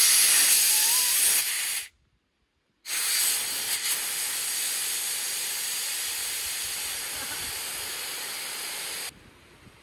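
Air hissing out of an inflatable paddleboard's open valve as the board is deflated. The hiss breaks off for about a second near two seconds in, comes back slightly weaker and fades slowly, then stops suddenly about nine seconds in.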